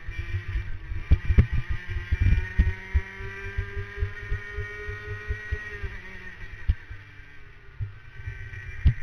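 Racing kart engine heard through an onboard camera. Its pitch climbs steadily for about six seconds as the kart accelerates down a straight, then drops as it lifts for a corner, and picks up again near the end. Irregular low thuds from the camera mount shaking run underneath.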